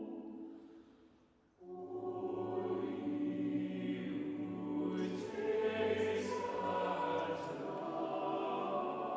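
Choir singing long held chords. It enters suddenly about one and a half seconds in, after the earlier music fades away.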